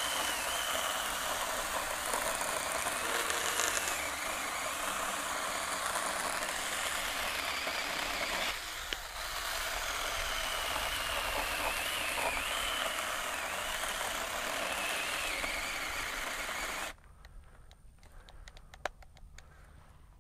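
BeiHong 6-inch 21 V cordless pruning chainsaw cutting through a log about 3¾ inches thick: a steady electric motor whine with the chain rasping through wood. It dips briefly about halfway, then cuts out abruptly near the end. The saw has shut off mid-cut with the battery still charged, which the owner takes for some type of overload protection.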